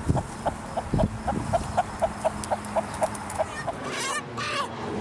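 A rooster clucking rapidly and evenly, about four clucks a second, with two dull thumps in the first second. Around four seconds in the clucking stops and the bird lets out a louder squawk as it is caught and held.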